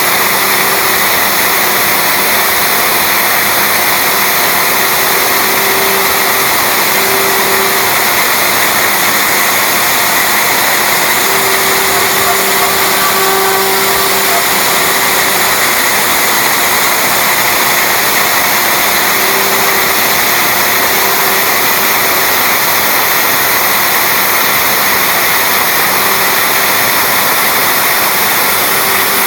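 CNC router spindle running steadily with its bit milling MDF: a loud, continuous high whine over cutting noise. A lower tone comes and goes several times as the machine moves the bit through the cut.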